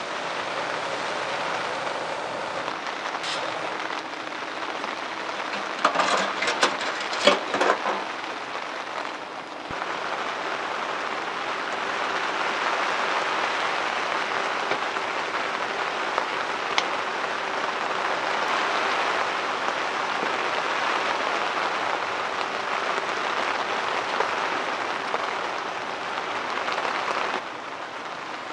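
Steady rain pattering, with a cluster of knocks and clatters about six to eight seconds in.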